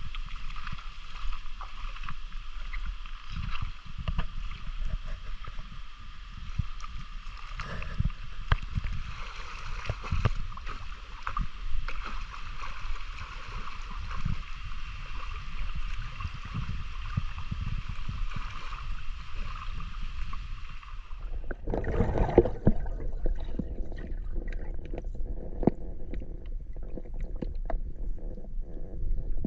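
Water sloshing and splashing around someone wading and handling things in shallow water, with many small knocks and splashes. About 21 s in the sound changes and becomes fuller and closer.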